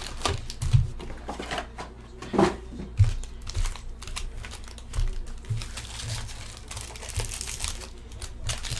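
Foil-wrapped trading card packs crinkling as they are lifted out of a cardboard box and stacked on a table, with soft knocks as packs are set down.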